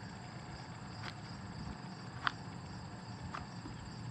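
Quiet steady high chirring, like insects, behind a few light clicks about a second apart, the sharpest a little over two seconds in, from handling the rotary hammer's SDS Plus chuck and collar.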